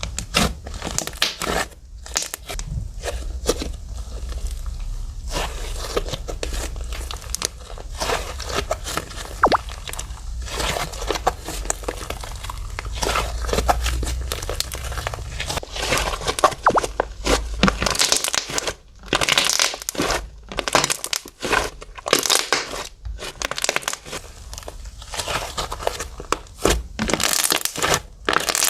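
Fluffy slime being squished, pressed and stretched by hand, making dense, irregular crackling and popping.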